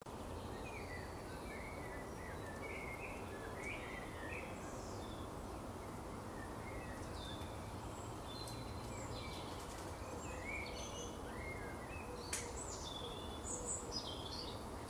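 Small birds chirping and calling in short bursts over a steady outdoor background hiss, with one sharp click near the end.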